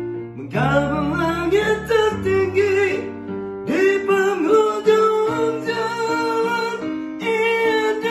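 A man singing a slow Malay ballad in long, held notes with vibrato, over his own electronic keyboard accompaniment of chords and a stepping bass line.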